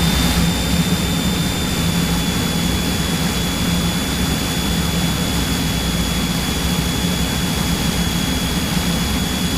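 Cessna 172's piston engine and propeller droning steadily in cruise on approach, heard inside the cabin, with a thin steady high whine over the engine noise.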